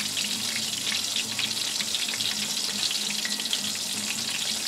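A coated piece of chicken deep-frying in hot oil in a pot: a steady bubbling, crackling sizzle, with a faint low hum underneath.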